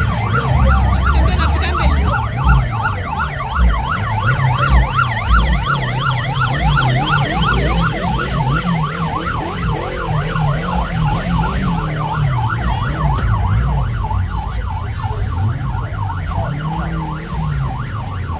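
Convoy escort siren sounding a fast, regular up-and-down yelp over a low rumble.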